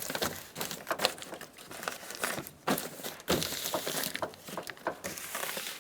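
Thin plastic vapor barrier sheet crinkling and rustling as it is handled and pressed back onto the door, with irregular small crackles and a denser stretch of crinkling in the second half.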